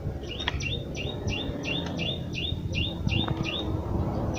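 A small bird chirping a rapid run of identical short high notes, about three or four a second, breaking off briefly near the end and starting again, over low handling noise of the kick-start parts being worked by hand.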